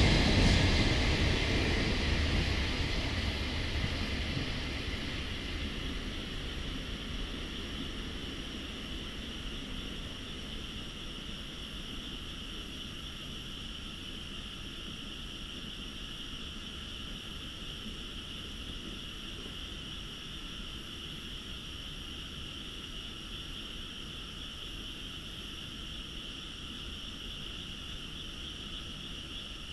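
The rumble of a freight train that has just passed on the line dies away over the first several seconds. What is left is a steady chorus of frogs calling from nearby paddy fields, over a faint low rumble.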